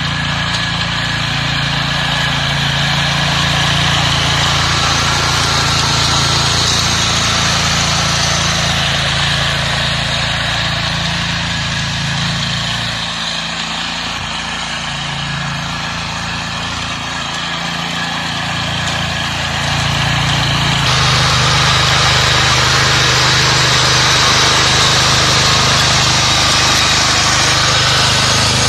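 Small air-cooled engine of a walk-behind two-wheel power tiller running steadily under load while its rotary tines churn soil. The sound shifts abruptly about three-quarters of the way through.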